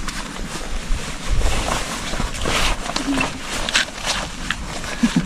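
Rustling of waterproof rain trousers being pulled on, in irregular scuffs and rustles.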